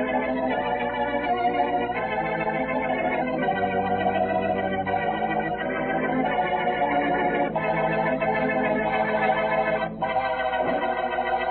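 Organ music of an old-time radio drama: held chords that change every couple of seconds, with a brief break just before ten seconds in. It has the narrow, muffled sound of an old radio recording.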